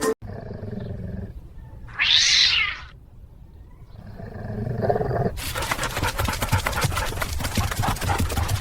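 A cat growling and yowling, with a short hiss about two seconds in.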